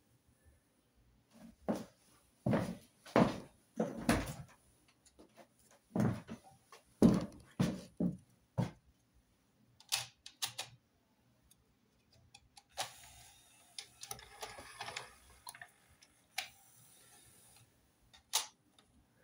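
Hand handling noise as compact discs are loaded into an opened CD changer's disc tray. A run of knocks and clunks comes over the first several seconds, then a few clicks and a short rustle, and a single sharp click near the end.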